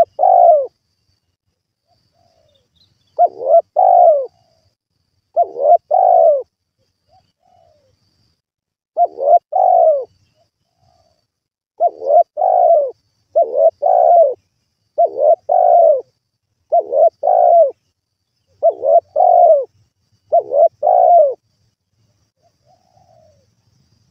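Spotted dove cooing its song: about ten short phrases of two or three coos each, repeated every one to three seconds.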